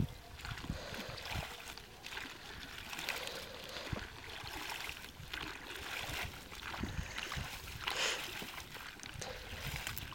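Shallow water sloshing and trickling with small irregular splashes as a fishing net is worked by hand through floating plants.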